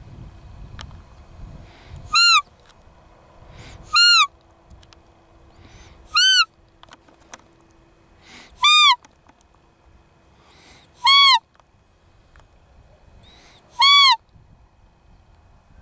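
Roe deer call blown by a hunter: six short, loud peeps that rise and fall in pitch, spaced about two to three seconds apart. They imitate a roe doe's fiep to lure a buck in.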